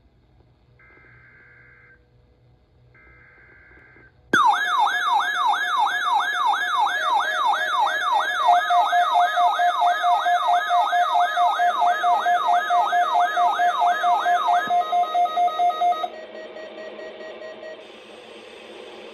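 Two short buzzy NOAA Weather Radio SAME data bursts come first: the coded header of the Required Weekly Test. About four seconds in, several weather alert radios (a RadioShack 12-996 and Midland WR-series models) set off their alert alarms together. The sound is a loud warbling siren-like sweep about two and a half times a second, over steady beeping tones. The sweep stops near fifteen seconds in, and the remaining tones drop much quieter at about sixteen seconds.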